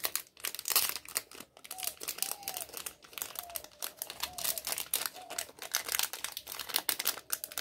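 Plastic packaging crinkling and crackling in the hands as a small pack of paint tubes is turned over and handled, in irregular quick crackles throughout.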